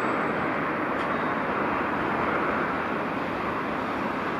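JR Freight EF210 electric locomotive hauling a container freight train, rolling slowly in on arrival: a steady running noise with no distinct rail-joint clicks.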